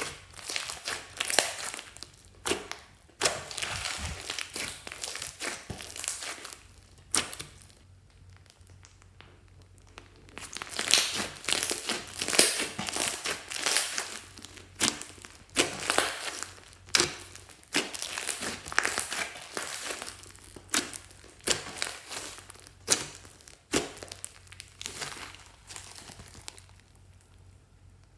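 Hands squishing and stretching a large mass of clear slime with beads mixed in: sticky crackles, pops and squelches in irregular bursts. There are quiet pauses about a third of the way in and near the end.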